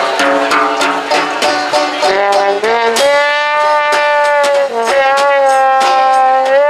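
Small acoustic jazz band playing: a trombone plays short phrases, then from about three seconds in holds two long notes, over strummed banjo, upright bass and a snare drum keeping a steady beat.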